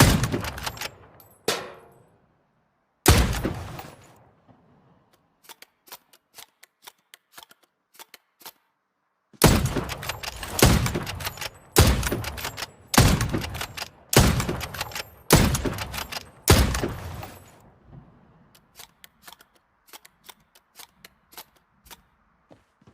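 Rifle shots, each a sharp crack with a decaying echo: three in the first few seconds, then a run of seven about a second apart. Faint small clicks sound in the gaps between the groups.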